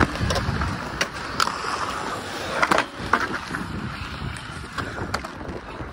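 Inline skate wheels rolling over concrete: a steady rough rumble with a few sharp clicks and knocks from the wheels and frames.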